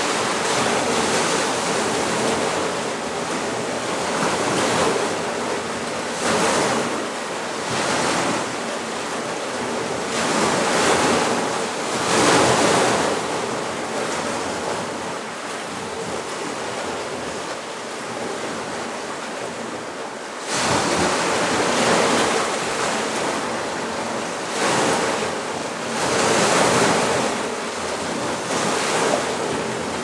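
Sea waves breaking and washing up a pebble beach, the surf swelling and easing every few seconds, with a sudden louder surge about two-thirds of the way through.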